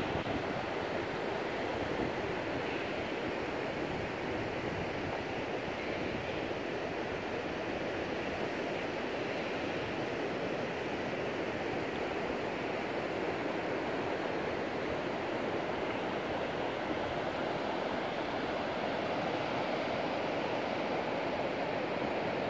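Waves breaking on a sandy beach: a steady wash of surf.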